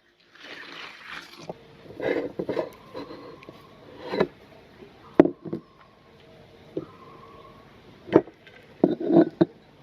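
Meat grinder working through soft cookies: irregular cracks, knocks and crackles over a steady low noise, starting about half a second in.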